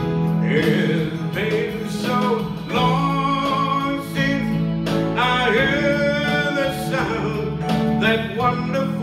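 A man singing a slow ballad into a microphone over a live band of hollow-body electric guitar and Korg Pa50 arranger keyboard, with a steady bass line underneath.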